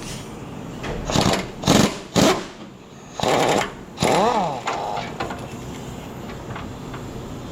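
Three sharp metal knocks about half a second apart as a failed bearing is worked loose from a John Deere 457 round baler. They are followed by a short scraping burst and a brief tone that rises and falls.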